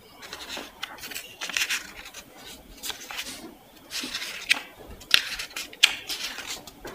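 Close handling noises: short rustling scrapes and several sharp clicks, the sharpest in the second half.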